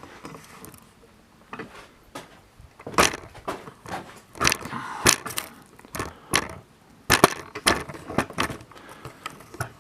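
Irregular knocks, clicks and scuffs with no steady rhythm, as of someone moving about and handling things in a small room.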